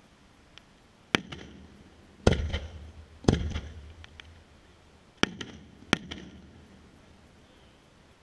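Silver 'argent fuyant' firework aerial shells bursting: five sharp bangs, the first three about a second apart, then a pause and two more close together. Each bang trails off in a rolling rumble, with a few faint pops between them.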